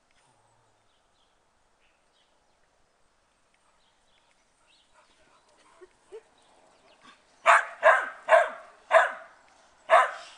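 Rough Collie barking during play: five loud, short barks in quick succession, starting about seven and a half seconds in after a near-silent stretch.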